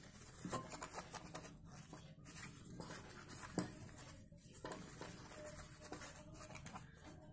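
Faint rustling and rubbing of cotton cloth handled by hand as a stitched collar is turned right side out, with a single brief click a little past halfway.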